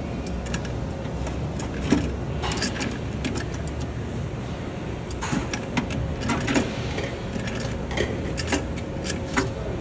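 Hand tools and loose metal fittings clinking and knocking irregularly against a metal case while fittings are being unscrewed, over a steady low hum.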